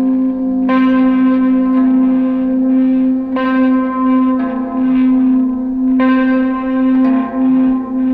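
Electric guitar played through effects pedals with echo and reverb: a steady droning note holds underneath while new notes or chords are struck about six times, each ringing on.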